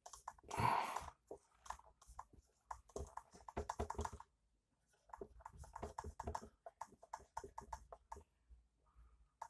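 Marker writing on a whiteboard: a quick run of light taps and short strokes of the tip, in two spells.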